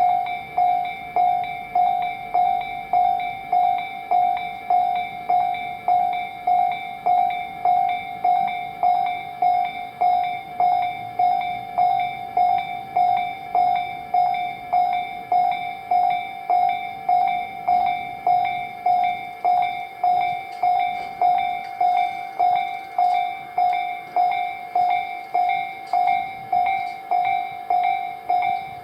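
Japanese level-crossing warning bell ringing without a break, an even two-tone ding at about one and a half strikes a second: the crossing is closed for passing trains.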